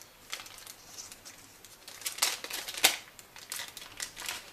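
Plastic bag holding a small replacement speaker crinkling as it is handled, with irregular sharp crackles.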